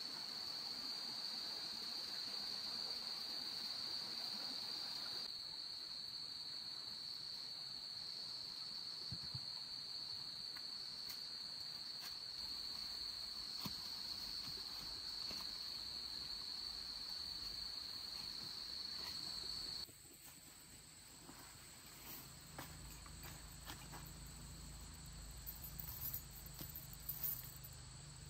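Insects shrilling on one steady high pitch, which cuts off suddenly about 20 seconds in. After that a fainter, higher insect tone and a low hum remain, with a few soft clicks near the end.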